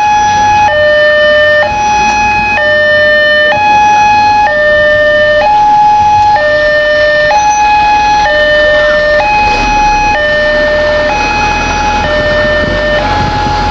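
Railway level-crossing warning alarm sounding a steady two-tone high–low chime, each tone held about a second, signalling that a train is approaching. A low rumble builds beneath it over the last few seconds.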